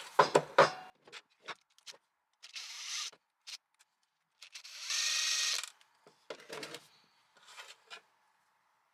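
Torx screws being undone from a cordless angle grinder's gear head: small clicks and knocks of the driver and metal parts, with two short rasping stretches of ratcheting, the longer one about a second long near the middle.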